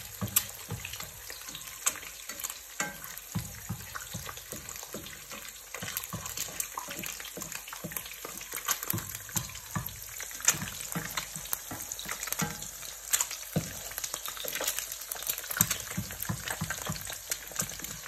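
Two eggs frying in hot oil in a nonstick pan over high heat: steady sizzling with frequent crackling pops of spitting oil.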